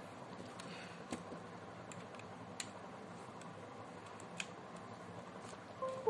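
Faint scattered clicks and small plastic knocks as a tiny USB wireless mouse receiver is handled and pushed into a laptop's USB port, over a faint steady hum. At the very end a short chime begins, the laptop signalling the newly connected device.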